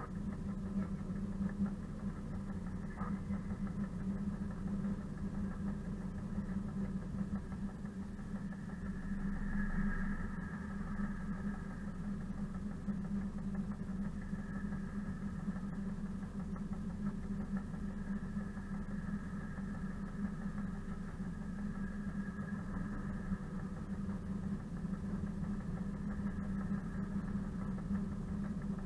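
Diesel engine of a ČKD class 742 locomotive running steadily at low power, heard close beside the engine hood as the locomotive rolls slowly.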